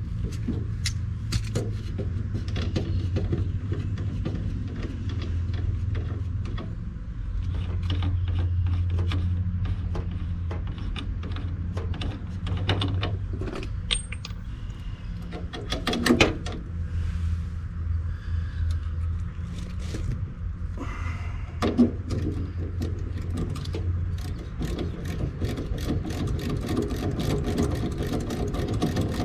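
Quick repeated ratchet clicks from a service wrench working the service valves of an air-conditioning condenser during a pump-down, with a couple of louder metal knocks, over a steady low hum.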